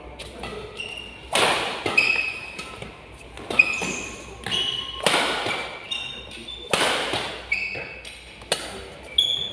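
Badminton rackets striking the shuttlecock in a fast doubles rally: about seven sharp hits, some of them hard smashes, every second or two, each ringing in a large hall. Short high squeaks of shoes on the court come between the hits.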